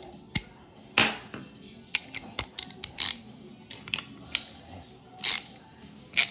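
Irregular sharp metal clicks and clinks of tools and parts on a bicycle pedal with loose ball bearings, as the bearing nut is threaded onto the spindle and tightened.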